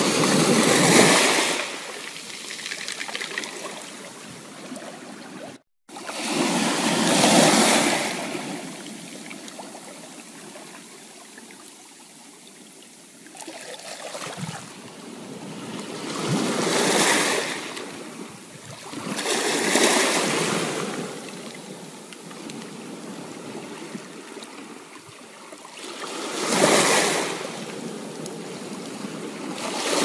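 Ocean surf breaking and washing in as a steady rush that swells with each wave and ebbs between them, about six surges in half a minute. The sound cuts out for a split second about six seconds in.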